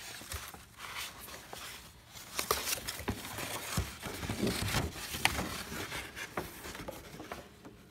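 Stiff old paper crinkling and rustling as a large folded certificate is unfolded and smoothed by hand, with irregular crackles and one sharp crackle about five seconds in.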